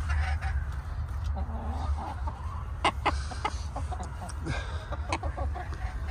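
Backyard hens clucking, with a few sharp knocks about halfway through and a steady low rumble underneath.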